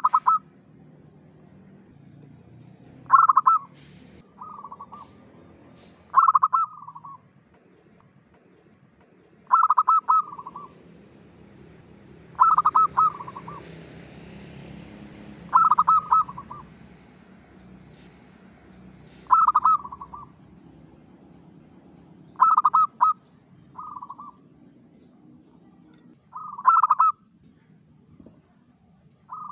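Local zebra dove (perkutut) singing its cooing song. A short run of quick coos repeats about every three seconds, some phrases followed by a softer, shorter tail.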